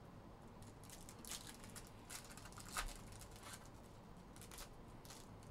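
Foil wrapper of a trading-card pack being torn open and crinkled by hand: faint, scattered crackles, with one sharper snap near the middle.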